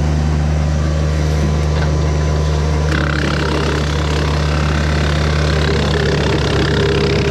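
Kubota BX compact tractor's three-cylinder diesel engine running steadily, driving the PTO wood chipper, with a short click about three seconds in after which a rougher, noisier layer joins the engine hum.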